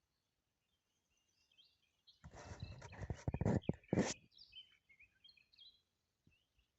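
Small birds chirping in the background, broken about two seconds in by a loud, noisy burst of sharp clattering that lasts about two seconds.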